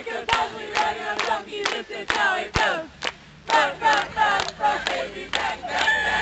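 A group of people chanting a song together while clapping in time, about two claps a second, with a brief lull about three seconds in.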